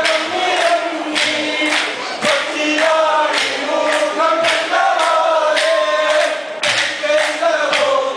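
Kolkali stick dance: a group of men singing a Malayalam folk song in chorus, with short wooden sticks clacking together in a steady beat.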